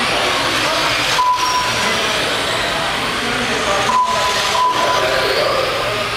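Radio-controlled race cars running on the track as a steady, loud mix of motor and drive noise, with background chatter. There are two short beeps, the first about a second in and the second about four seconds in.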